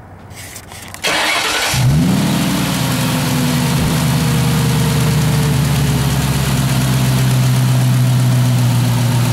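1999 Ford Mustang GT's 4.6-litre V8 cranked by the starter about a second in, catching and settling into a steady idle. The owner suspects a rod knock in the engine.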